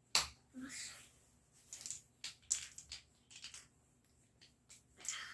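Lego bricks being handled and pressed together: a string of sharp plastic clicks and light rattles, the loudest right at the start.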